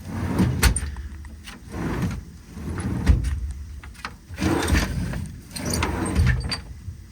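Steel service-body tool drawers pulled out and pushed back in several times, their slides grinding and rumbling, with knocks as they hit their stops. The slides are dry and could all use a little lubrication.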